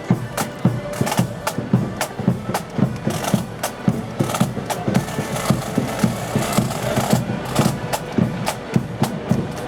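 Marching accordion band playing a march, with accordions over snare and bass drums beating a steady march rhythm.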